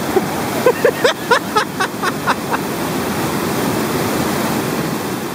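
Rushing whitewater of a river rapid, a loud steady roar. About eight short high-pitched calls cut through it in the first two and a half seconds.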